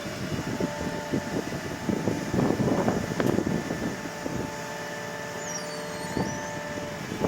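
Dynapac MF2500CS asphalt paver running, with a steady whine over a low rumble, and wind gusting on the microphone.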